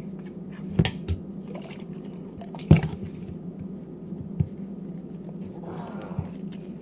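Fluffy slime of glue, shaving foam and contact solution being stirred, squishing, as the contact solution makes it form. A few sharp clicks, the loudest about two and a half seconds in, over a steady low hum.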